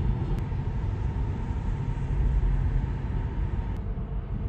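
Steady low road and tyre rumble inside the cabin of a Tesla Model 3/Y electric car driving at about 60 mph, with a faint click just before the end.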